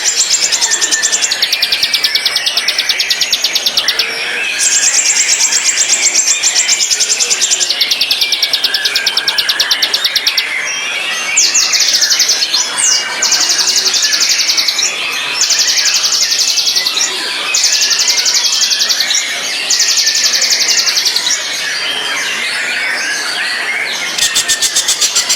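White-rumped shama song: rapid, high, buzzy trills repeated in bursts of one to three seconds with short breaks, over softer continuous twittering.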